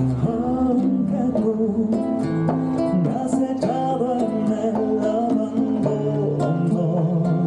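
Live traditional Mexican band music: acoustic guitars strum a steady rhythm over bass notes while a plucked melody line moves above them.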